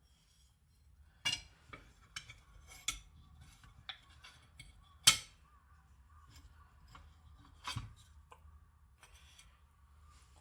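A kitchen knife and utensils being handled, with a string of short, light clinks and knocks of metal and hard objects. The loudest knock comes about five seconds in.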